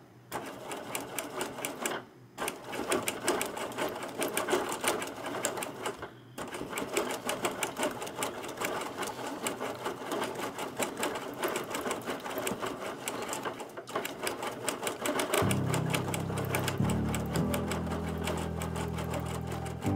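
Bernina Q20 quilting machine stitching free-motion with a regular free-motion foot, a fast steady needle rhythm that stops briefly a few times. Background music fades in near the end.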